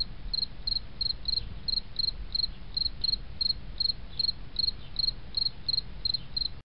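Cricket chirping: a steady run of short, high chirps, about three a second, over a low hum. It cuts off suddenly near the end.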